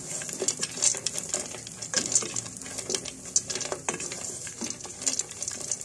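Raisins and peanuts sizzling in hot ghee in a metal pan, stirred by a wooden spatula: a steady frying hiss broken by irregular scrapes and knocks of the spatula on the pan.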